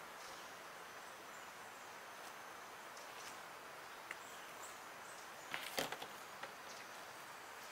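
Steady faint outdoor background hiss, with a brief cluster of clicks and rustles a little before six seconds in as paper and small tools are handled on a table.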